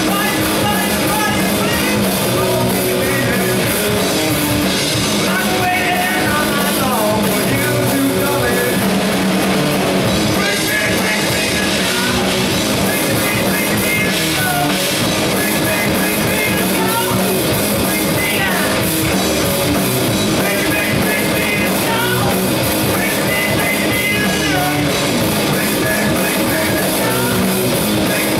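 Live rock band playing loud, with distorted electric guitars and a drum kit.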